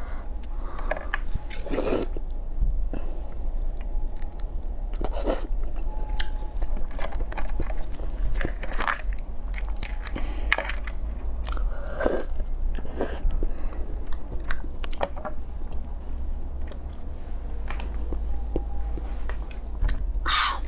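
Close-up eating of a crab: shell cracking and being pulled apart by hand, with biting and chewing of the meat, heard as an irregular string of short crunches and clicks over a steady low hum.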